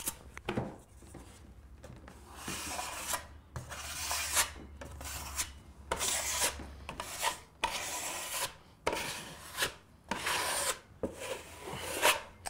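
Steel broad knife scraping wet joint compound across a plasterboard wall in a series of separate strokes, each lasting up to about a second. This is the finishing coat of compound being spread and smoothed over the patch.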